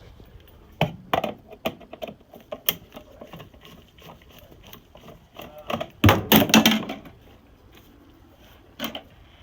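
Scattered clicks and light knocks of hands working on a furnace's ignition control module, with a louder burst of rattling and scraping about six seconds in.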